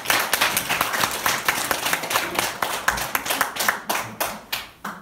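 Audience applauding with hand claps, the clapping thinning out and dying away near the end.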